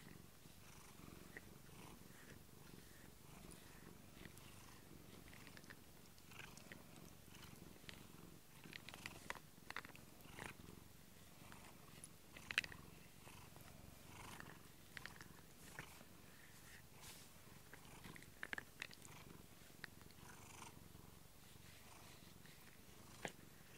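Domestic cat purring steadily and faintly, a relaxed purr. Scattered soft scratchy clicks run over it, loudest about halfway through, as the cat rubs its cheek against a rubber grooming brush.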